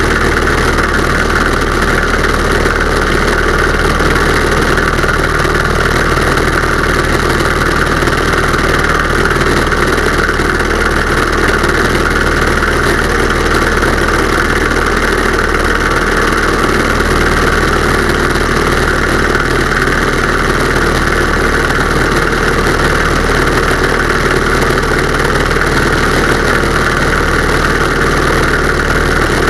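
Pietenpol Air Camper's engine and propeller running steadily in flight, with wind rushing over the wing-mounted camera, loud and even throughout.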